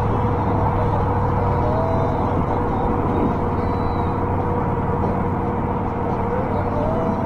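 Steady rush of wind and tyre noise from an Ancheer e-bike riding along a paved path, with a constant whine and traffic noise from a highway alongside.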